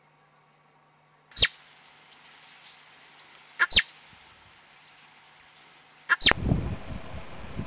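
Marmot giving three short, sharp alarm calls, evenly spaced about two and a half seconds apart, each one a brief high, slightly falling call. A rumbling outdoor background noise comes in with the third call.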